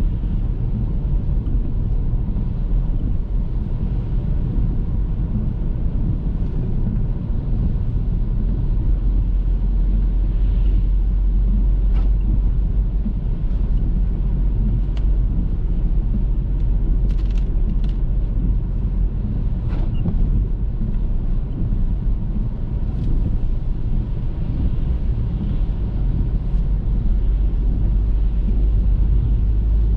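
Car driving at a steady speed: a constant low road and engine rumble, with a few faint ticks in the middle stretch.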